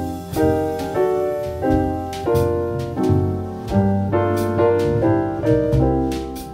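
Background music: a jazz tune led by piano chords over a low bass line.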